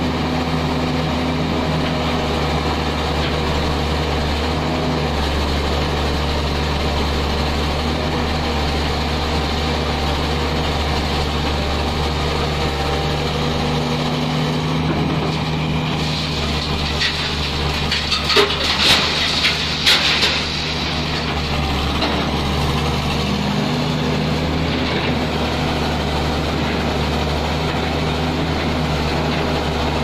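Heavy excavator's diesel engine running steadily under work. A little past halfway through there are a few seconds of sharp clattering and knocking, loose stone ballast tumbling against steel.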